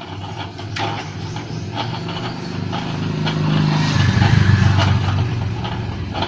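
A motor vehicle engine, most likely a motorcycle, running and passing by: a steady low hum that rises a little in pitch and grows loudest about four seconds in, then eases off. A few small clicks come early on.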